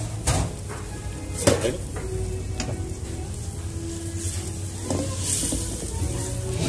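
A spatula stirring and scraping in a steel wok as a sauce bubbles and sizzles, with a few sharp knocks of the spatula against the pan, the loudest about a second and a half in.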